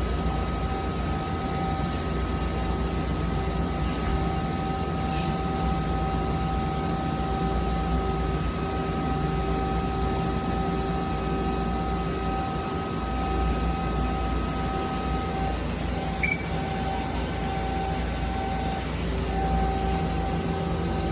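A 2006 Mazak QTN 200 CNC lathe running under power: a steady machine hum with a few steady whining tones. The highest tone stops about three-quarters of the way through.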